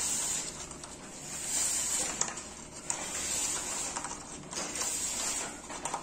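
Steady background hiss that swells and fades, with a few faint light clicks as soft baked cookies are picked up and turned over on a metal baking sheet.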